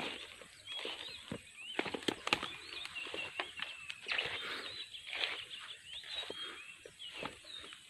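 Birds chirping, with many short rising and falling calls, over scattered clicks and rustling.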